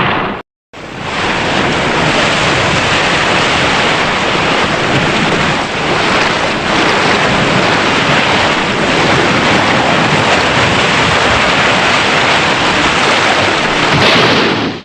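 Tokusatsu film sound effect: a short burst at the very start, then, after a brief gap, a long, steady rushing roar like wind or surf that swells in over about a second and cuts off near the end.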